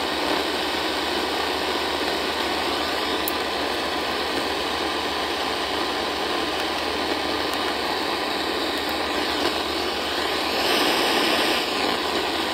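AM radio static: a steady hiss with no programme coming through, as on a frequency where no station is being received. It grows slightly louder near the end.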